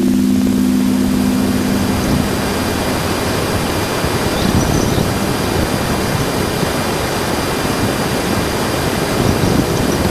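Voyager 1 plasma wave instrument data from Jupiter's magnetosphere played back as audio: a steady hiss of noise. A few low steady hum tones run under it for the first two seconds or so and then drop out, and faint high steady tones run throughout.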